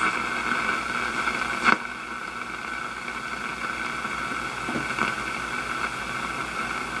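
Hissing static from a 1937 Sears Silvertone tube radio's speaker on the shortwave band, with one sharp click a little under two seconds in, after which the hiss is slightly quieter.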